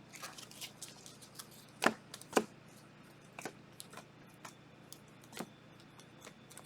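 Trading cards and packaging being handled and sorted on a table: scattered light clicks and taps, with two louder knocks about two seconds in.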